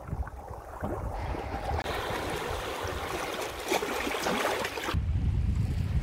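Small sea waves washing and lapping over rocks and pebbles, a steady hiss of water. About five seconds in, wind buffeting the microphone takes over as a low rumble.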